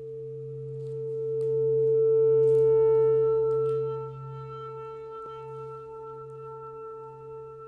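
Ambient drone music: long held tones over a low hum, swelling to a peak about two to three seconds in and easing back about four seconds in, with a few faint clicks.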